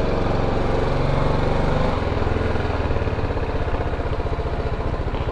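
BMW G310GS's single-cylinder engine running as the motorcycle rolls slowly. About two seconds in, the engine note drops to a lower, even pulsing beat.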